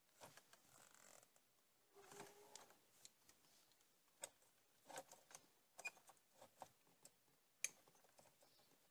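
Faint rustling and small clicks of wiring being handled: an insulated crimp connector squeezed with crimping pliers, then connectors pushed onto the terminals of a dashboard switch, with one sharper click near the end.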